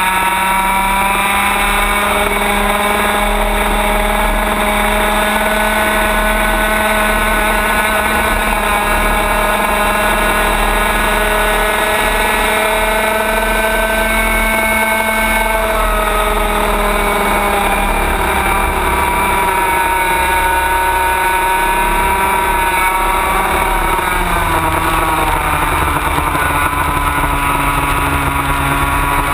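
Racing kart engine heard onboard at speed, its pitch climbing steadily for about fifteen seconds, dropping as the kart slows for a corner, then climbing again near the end.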